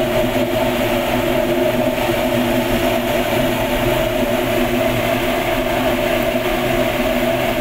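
Cremation furnace firing: a loud, steady rush of burner flame with a constant hum, unchanging throughout.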